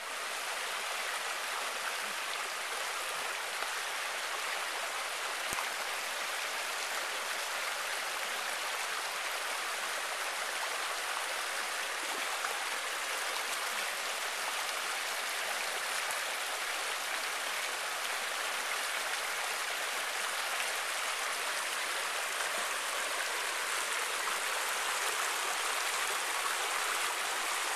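Rocky stream rushing and splashing over boulders: a steady, even rush of water.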